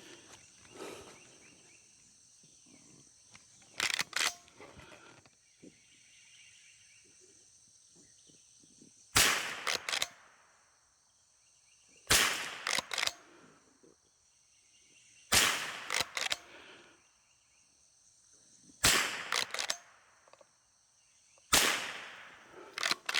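A .22 rimfire gun fired five times at even intervals of about three seconds. Each sharp crack is followed by a couple of lighter mechanical clicks as the action is worked. A pair of loading clicks comes before the first shot.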